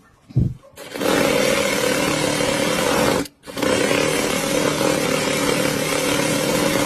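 Automatic sewing machine running at speed: a steady, dense mechanical whirr with a low drone. After a low thump near the start, the sound breaks off for a moment about a third of the way in, then resumes.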